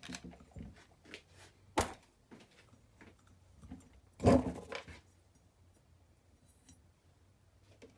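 Handling noises of small parts and tools on a workbench: a sharp click about two seconds in and a short, louder clatter a little past the middle, then quiet.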